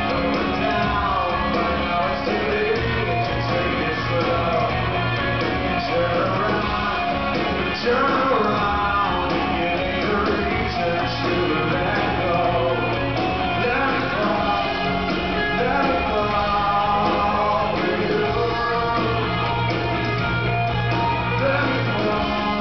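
Live rock band playing with a male lead singer: electric guitar, bass and drums under the vocal, recorded in concert.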